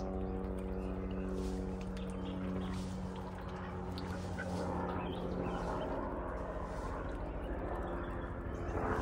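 A steady low motor hum that fades out a little past halfway, with soft sounds from ducks moving about a muddy pen.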